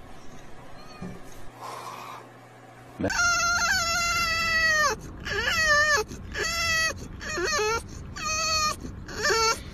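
French bulldog whining and howling in high, drawn-out calls. About three seconds in comes one long call, followed by a string of shorter calls that bend up and down in pitch.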